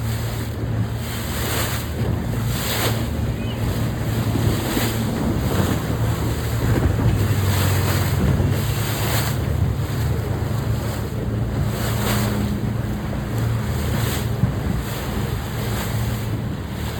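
Sea waves washing and wind buffeting the microphone in gusts, over a steady low hum.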